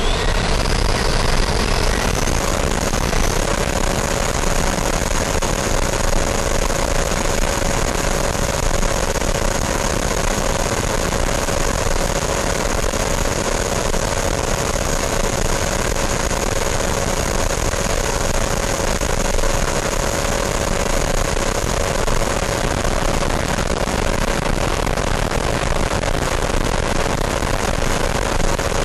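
Electric ducted fan of a radio-controlled jet, heard from its onboard camera. Over the first few seconds it spools up for takeoff, its whine rising in pitch, then it holds a steady high-pitched whine over a constant rush of air.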